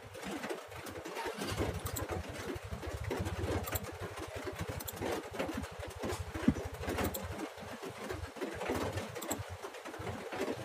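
A motor running with a low, rapid pulsing, starting about a second and a half in and dying away around eight seconds in.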